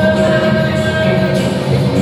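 Santali folk dance music with singing; a voice holds one long note through most of the stretch.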